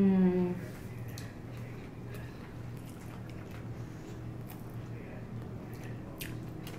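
Mouth sounds of people eating sushi: quiet chewing with scattered faint clicks and smacks over a steady low hum. It opens with a short hummed "mmm" of enjoyment that falls slightly in pitch.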